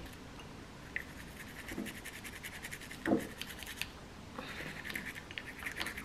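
Toothbrush bristles scrubbing diamond rings in jewellery-cleaning solution: a quick, fine scratching of many short strokes, with one soft knock about three seconds in.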